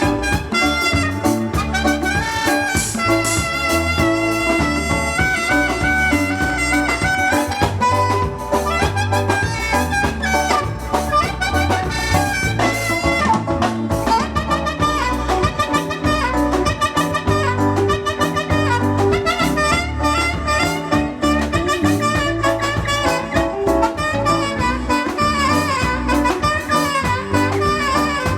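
A live band playing a continuous piece of music, with melodic instrument lines over a steady drum beat.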